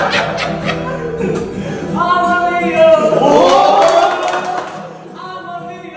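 A group of men singing loudly together over a strummed acoustic guitar, holding long notes in the middle before the voices fade near the end.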